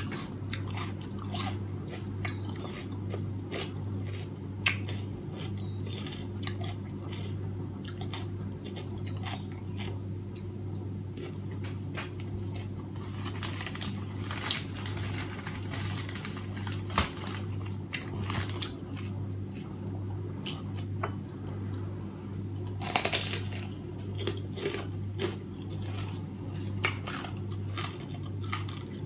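Close-up chewing and mouth sounds of someone eating steamed fish by hand: many small wet clicks and light crunches, over a steady low hum. A short, louder rustle comes about three-quarters of the way through.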